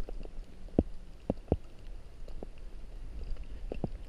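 Steady low wind rumble on a body-worn microphone, with six or so dull knocks scattered through from jostling and scrambling at the muddy water's edge.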